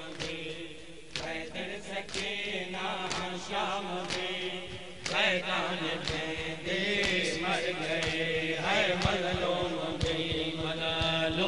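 Men's voices chanting a noha lament, with sharp slaps about once a second, the beat of mourners' chest-beating (matam).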